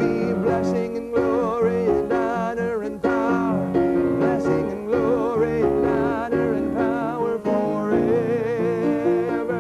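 A man singing a worship chorus with a wide vibrato, accompanying himself on a grand piano with rhythmic chords that change about once a second.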